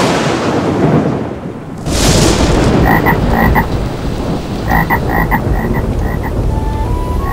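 Thunderstorm sound effect: a loud thunder crack at the start that fades away, a second crack about two seconds in, then steady rain with a low rumble. From about three seconds in, a frog croaks in short runs of quick croaks over the rain.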